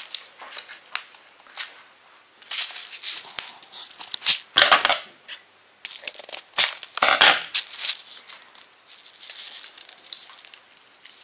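Plastic and paper sprinkle packets crinkling and rustling as they are handled and shaken open, in several loud bursts, the strongest a few seconds in and again in the middle.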